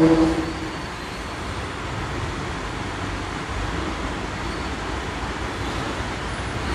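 Steady low background noise with a faint low rumble and no voice: the silent pause of a congregational prayer after the imam's takbir. The drawn-out end of a chanted 'Allahu akbar' fades out at the very start.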